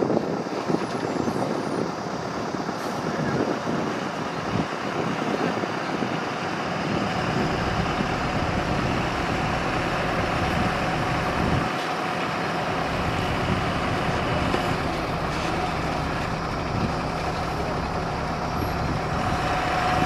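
Diesel engine of a loaded Tata 2518 tipper truck running as it drives slowly over a dirt track, its low rumble building up about a third of the way in as it comes closer, with a thin steady whine above it.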